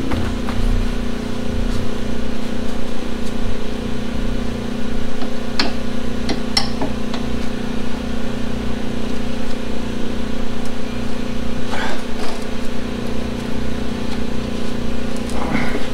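Steady mechanical hum throughout, with a few sharp metal clicks and clinks from pliers working the exhaust's rubber hangers.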